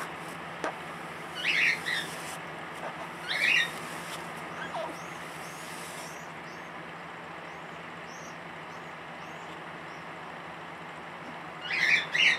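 Young crow giving short, hoarse, squeaky calls that sound like a guinea pig: one about a second and a half in, another about three and a half seconds in, and a louder double call near the end.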